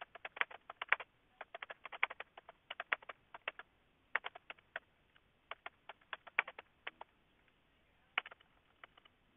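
Computer keyboard typing heard over a telephone line: quick, irregular clicks, several a second, with two short lulls about five and seven seconds in.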